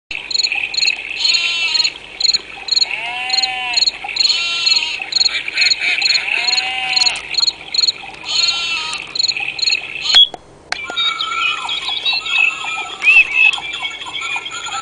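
Recorded nature sounds played back by a digital clock: frogs croaking over a steady, evenly spaced chirping of crickets. About ten seconds in there are two clicks and a short break, after which the sound changes to birds chirping.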